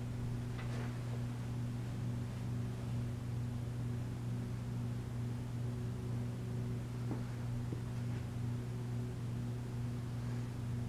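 Vintage Hunter Original ceiling fan's oil-bath motor running on low speed with a steady low hum. A couple of faint ticks about seven seconds in.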